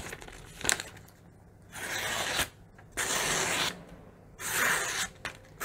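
A freshly sharpened Buck hunting knife slicing through a glossy printed sheet of paper, three long hissing cuts about a second apart with a fourth starting at the end. This is a paper-cutting test of the repaired edge, which is cutting cleanly.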